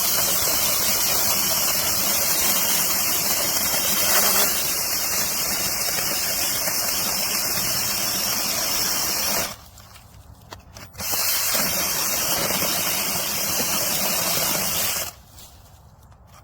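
Cordless brushless electric mini chainsaw with a 6-inch bar cutting through a hardwood log about 6 inches thick. It runs steadily under load for about nine and a half seconds, stops for a moment, then runs and cuts again for about four seconds before stopping.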